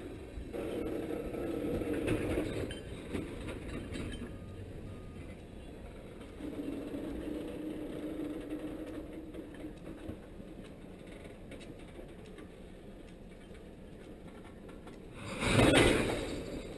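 Railroad tank cars rolling slowly past, their steel wheels rumbling on the rails with low squealing tones that come and go twice. A brief, loud burst of noise comes near the end.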